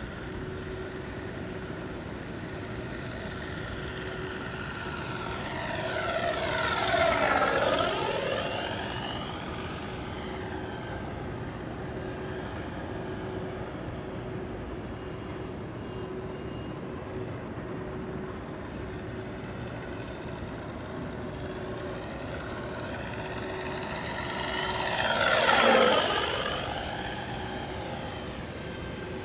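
Electric RC Corsair F4U-1A warbird in flight, passing close twice, about seven seconds in and again near the end, its pitch dropping as it goes by. Its onboard sound system plays a simulated radial engine sound over the motor and propeller.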